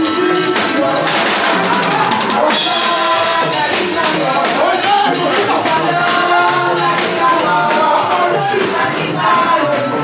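Music with a drum kit keeping a steady beat and voices singing a melody over it.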